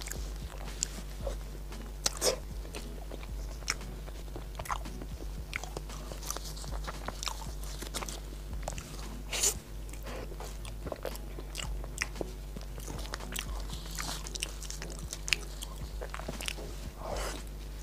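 A person biting and chewing a soft, sticky taro-paste-filled snow-skin mochi: wet mouth sounds with irregular small clicks and smacks, over a steady low hum.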